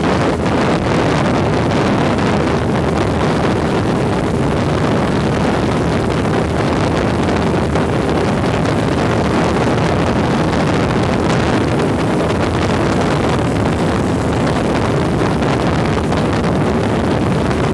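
Airboat running at speed: the engine and its large air propeller make a loud, steady noise, with wind buffeting the microphone.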